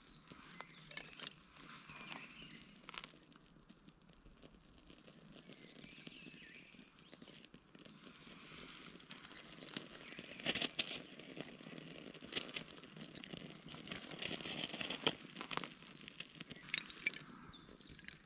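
A ferro rod being scraped and struck over birch-bark tinder: a string of sharp scrapes and clicks with rustling and crackling, busier and louder in the second half.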